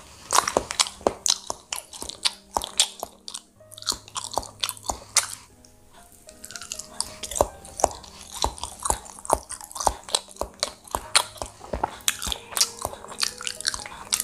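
A person chewing and biting baked banana-cheese bread close to the microphone: many short, sharp mouth sounds in an uneven rhythm, with brief pauses. Faint background music plays underneath.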